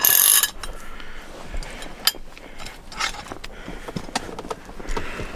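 Keys jangling and small metal clicks as a key-operated anti-theft lock on the car is worked and locked, with a short rustling burst at the start and a few sharp clicks after it.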